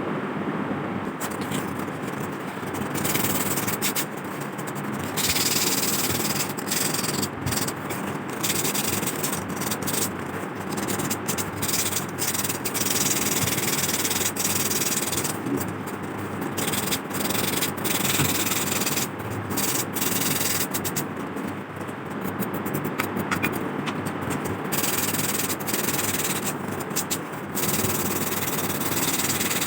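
Emery paper rubbed over a rusty metal lamp part in repeated uneven strokes, abrading off the rust.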